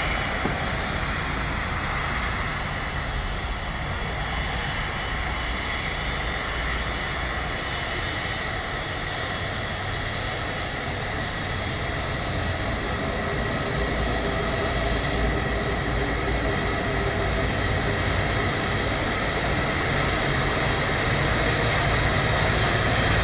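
Airbus A330 jet engines at taxi power: a steady rushing whine with high steady tones in it, growing a little louder in the second half.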